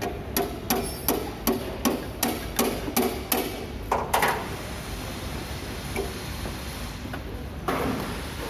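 Hammer blows, about three a second for some four seconds, then they stop, over a steady low workshop hum. A rushing noise comes up near the end.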